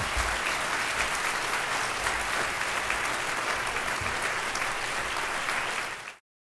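Audience applauding steadily, a dense patter of many hands clapping, which cuts off suddenly about six seconds in.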